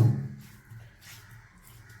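Roasted coconut being rubbed on a grinding stone; the strokes die away within the first half-second, leaving a faint low hum.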